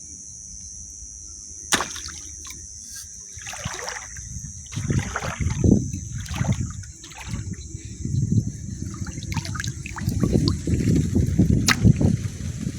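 Shallow water sloshing and splashing in irregular pulses, as of someone wading through it, starting about a third of the way in and growing busier toward the end. A steady high chirring of night insects runs underneath.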